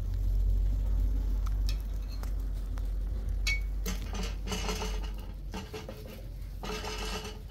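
Clatter of dishes and metal utensils, scattered clinks and knocks over a steady low rumble.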